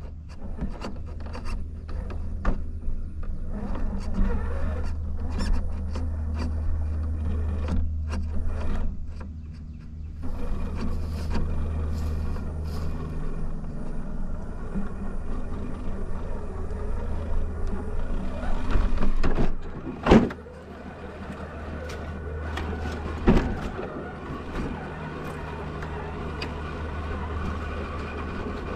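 Onboard sound of a scale RC crawler truck driving: a steady low drone from its electric motor and gear drive that eases off briefly and picks up again, with scattered clicks and knocks from the chassis and tyres. Two sharp knocks stand out, one about two-thirds of the way through and another about three seconds later.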